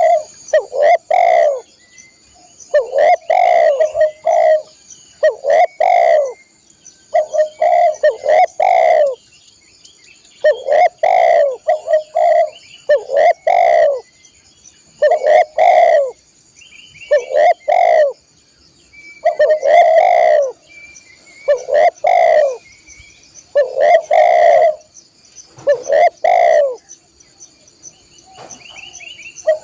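Spotted dove (tekukur) cooing over and over, loud phrases of a few low coos repeating about every two seconds, with a faint steady high-pitched drone behind.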